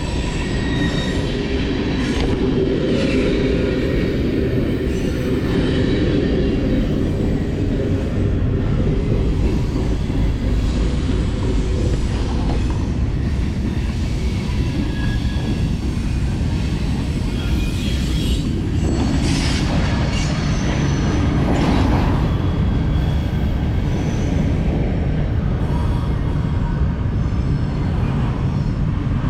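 BMX bike rolling over skate-park concrete, with a steady rumble of tyres and wind on the microphone. A few louder scrapes or knocks come about two-thirds of the way through.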